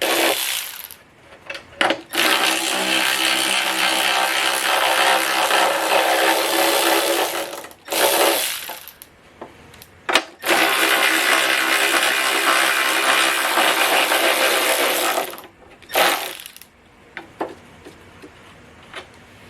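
Power tool motor running in several bursts, two long runs of about five to six seconds and a few short ones, while the blower motor is taken off the heater box.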